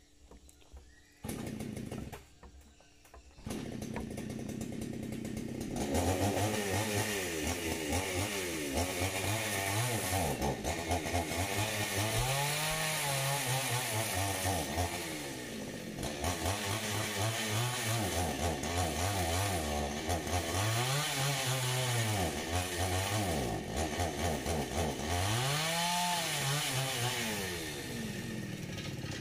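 Two-stroke chainsaw being started: a short burst about a second in, then the engine catches and runs a couple of seconds later. From about six seconds it is revved up and down over and over, its pitch rising and falling in repeated sweeps.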